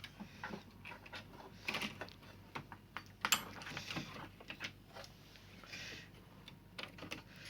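Irregular light clicks, taps and short scrapes as an LCD TV's power supply board and its screws are handled during the board swap.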